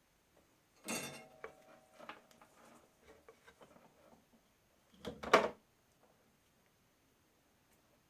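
Handling noise from tools and materials on a workbench: a clatter with a short metallic ring about a second in, small knocks and rustles, then a louder clunk just past five seconds.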